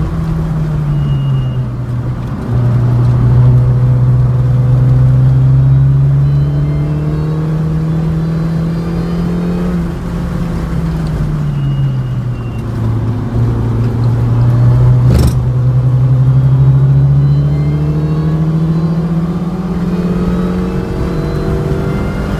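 MINI Cooper S (R53) supercharged four-cylinder engine under track driving: its note climbs steadily under acceleration, falls away from about ten seconds in as the car slows, then climbs again. One sharp knock about fifteen seconds in.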